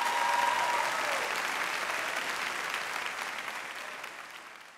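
Audience applauding, strongest at first and fading away near the end.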